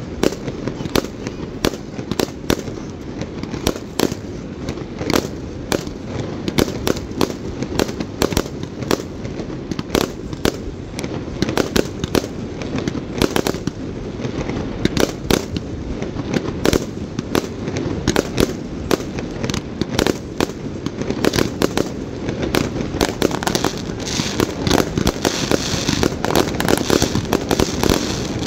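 Fireworks display: a dense stream of shell bursts, several sharp bangs a second, over a steady low rumble, with more crackling hiss near the end.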